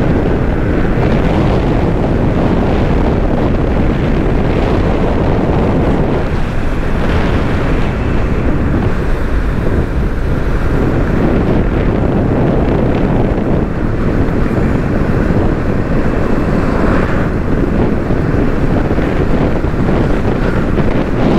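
Heavy wind buffeting the microphone on a moving motorcycle, a steady rumble with the motorcycle's running and road noise blended underneath.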